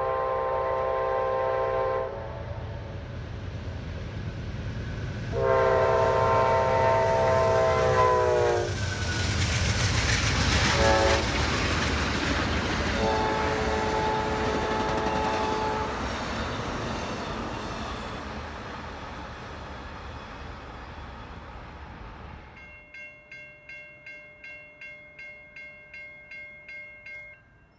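Amtrak passenger train's horn sounding the grade-crossing pattern: two long blasts, a short one and a long one, the second bending down in pitch as the locomotive passes, then the rumble of the train going by, fading away. After a cut, a railroad crossing signal's bell ringing steadily, about three dings a second.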